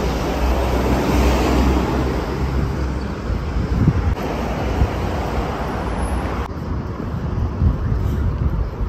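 Street traffic: cars running along a city road with a steady rumble, swelling louder about a second in. The sound changes abruptly about six and a half seconds in.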